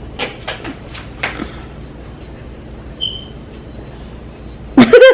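A quiet room with a low hum and a few faint clicks, then near the end a sudden loud vocal outburst from the players.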